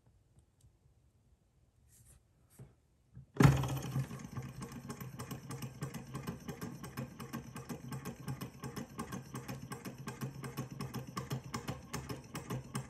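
Small alpha-type hot-air Stirling engine, alcohol-burner fired and still stiff on its first run. After near silence it starts running suddenly about three and a half seconds in, then keeps up a rapid, even clicking.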